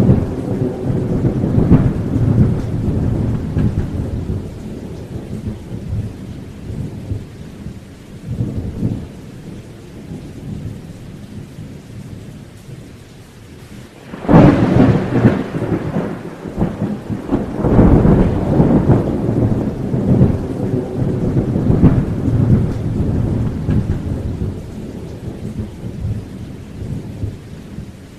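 Thunderstorm. A rumble of thunder fades away over the first several seconds, and about halfway through a sudden, loud thunderclap breaks and rolls on for several seconds before slowly dying down.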